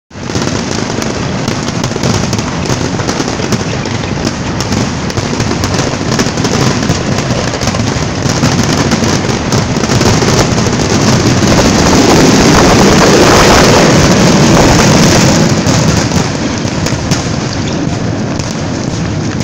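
Fireworks barrage: many shell bursts and crackling overlap into one continuous din. It builds to its loudest about halfway through and eases off somewhat near the end.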